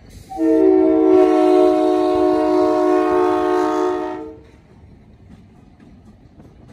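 Diesel locomotive's multi-chime air horn sounding one long blast of about four seconds, several notes together, as the train approaches a street grade crossing; it cuts off, leaving the low rumble of the locomotives passing through the crossing.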